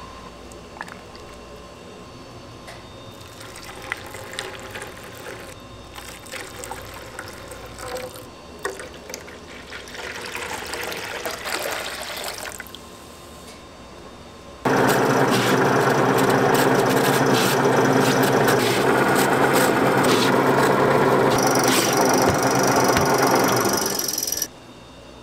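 A stream of liquid poured into a metal tray, then an electric green-onion shredder running loudly and steadily for about ten seconds before cutting off suddenly.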